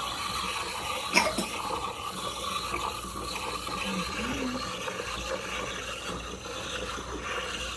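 Espresso machine steam wand hissing steadily as it froths milk, with a single sharp click about a second in.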